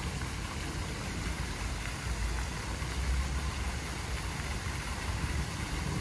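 Steady hiss of a pond fountain's water jet and spray falling onto the water, over a steady low rumble.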